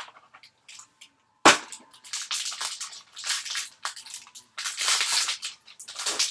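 Foil trading-card pack being torn open and crinkled by hand: a sharp tearing snap about a second and a half in, then a run of loud crackling crinkles.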